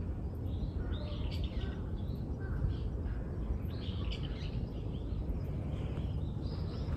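Several small birds chirping and twittering in short repeated phrases, over a steady low outdoor rumble.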